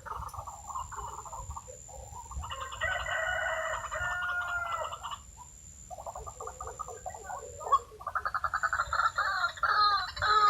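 White-breasted waterhens calling: fast, rhythmic runs of repeated notes with several voices overlapping, a brief lull midway, then louder calling near the end. A thin steady high tone runs underneath.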